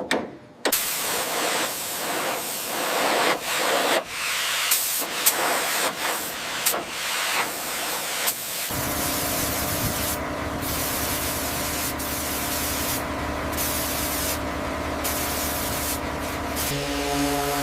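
High-pressure spray hissing against metal, in uneven strokes for the first several seconds, then settling into a steady hiss. Background music with held chords comes in about nine seconds in.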